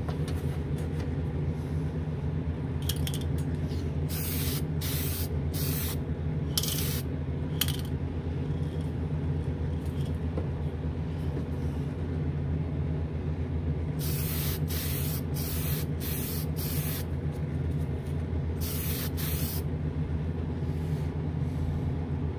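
Aerosol spray can of Testors Extreme Lacquer spraying in short hissing bursts, in three clusters: about eight, then six in quick succession, then two. Under it runs the steady low hum of a spray booth's exhaust fan.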